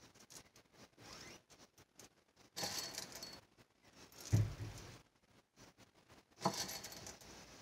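Whole coffee beans being handled and pressed into the soft top of a soap loaf: scattered small clicks with two short bursts of rattling and rustling, and a dull bump about four seconds in.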